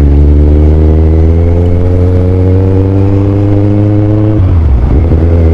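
Kawasaki Z1000 inline-four engine under load while riding, its note rising steadily for about four seconds, then dropping sharply about four and a half seconds in before pulling again.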